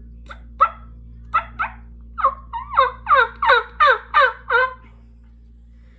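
Stacked-frame diaphragm turkey mouth call being run: a few short, spaced notes, then a quick run of about seven yelps, each dropping in pitch, that stops about two-thirds of the way through.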